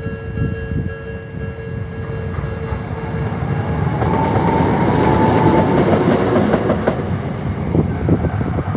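A Toei 9000-series tram passing over a level crossing. Its running noise swells about four seconds in, with a high whine, and its wheels clack over the rail joints near the end.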